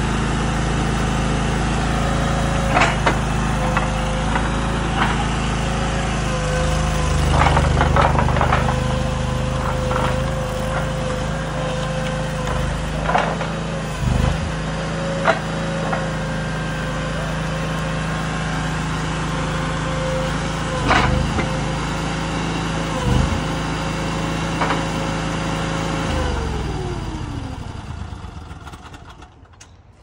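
Small engine of a Chinese tracked stand-on mini skid steer running steadily with a steady whine while the machine is driven, with a few sharp knocks along the way. Near the end the engine is shut off and winds down, the whine sliding down in pitch as it dies away.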